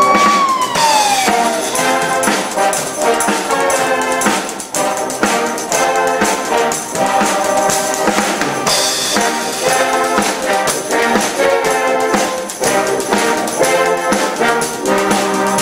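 Background music led by brass instruments, with a drum kit keeping a steady beat. A siren wail falls away over the first second and a half.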